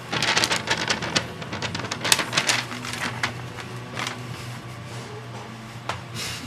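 A sheet of paper rustling and crinkling as it is handled, in quick bursts of crackles through the first few seconds, then a few scattered ones, over a low steady hum.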